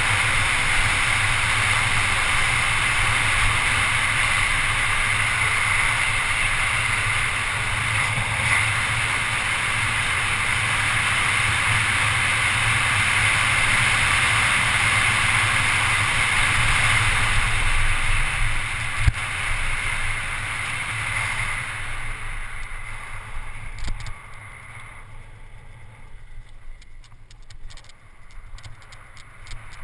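Wind rushing over a handlebar-mounted GoPro HD as a mountain bike descends a paved road at speed. About twenty-two seconds in the rush dies down as the bike slows, leaving a quieter stretch with faint rapid clicks.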